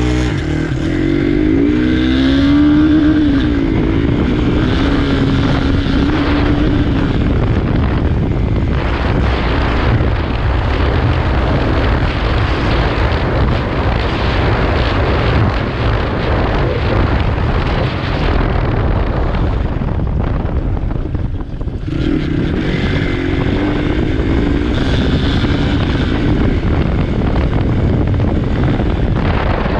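Motorcycle engine running at speed on a dirt road. Its pitch rises as it accelerates near the start and again about 22 seconds in, with a steady rush of wind and road noise in between.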